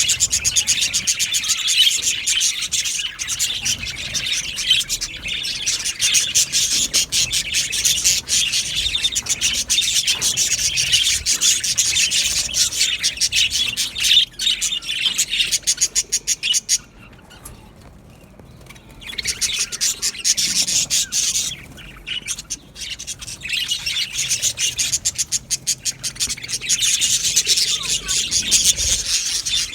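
A flock of budgerigars chattering: a dense, raspy stream of rapid high chirps. It briefly falls away about two-thirds of the way through and again shortly after.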